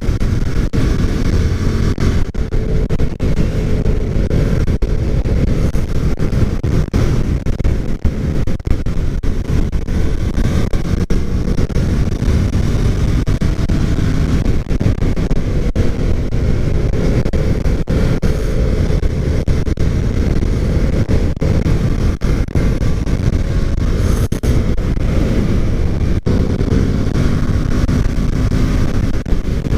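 Yamaha FZ-07 motorcycle's parallel-twin engine running at road speed, its pitch rising and falling with the throttle, under heavy wind rush on the microphone.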